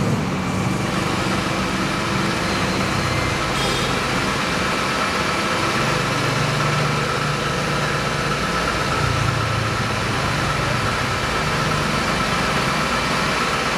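Ecovacs Deebot T9 robot vacuum running with a steady whir from its suction fan and a faint steady whine, while it scans the room before it sets off cleaning.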